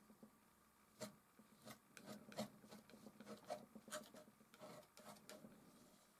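Faint scrape of a metal palette knife spreading oil paint across canvas, in a run of short strokes starting about a second in and ending shortly before the end.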